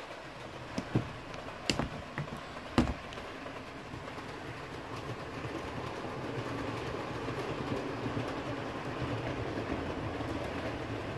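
Model train running on the layout's track: a steady rumble of wheels and motor that grows louder through the second half, with a few sharp clicks in the first three seconds.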